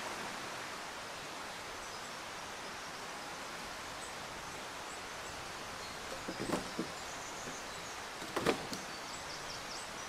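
Outdoor woodland ambience: a steady, even hiss of background noise, with a few faint high chirps and two brief louder sounds, one past the middle and one near the end.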